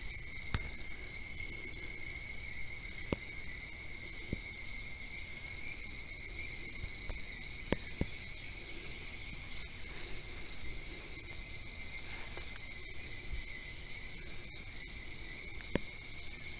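Insects calling in chorus: a steady high trill with a second, regularly pulsing call above it, and a few faint scattered clicks.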